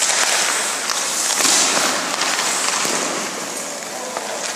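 Ice skate blades scraping and carving on rink ice, a high hiss that swells about a second and a half in, with an occasional sharp click.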